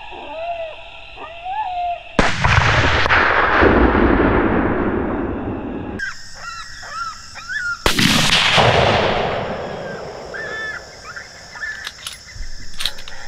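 Two rifle shots from a Savage 110 bolt-action rifle in .22-250, each a sharp crack followed by a rumble that rolls and fades over several seconds. The first echo is cut off abruptly. Short, high, wavering calls sound before and between the shots.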